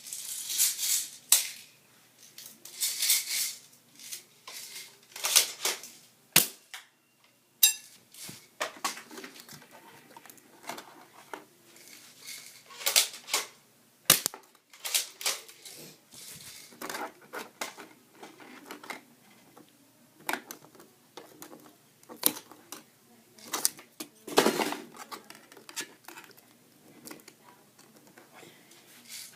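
Pump-action airsoft shotgun being racked and fired at a CD with 6 mm BBs: a series of sharp snaps and clacks at irregular spacing, some followed by short rattles, with the loudest burst about three-quarters of the way through.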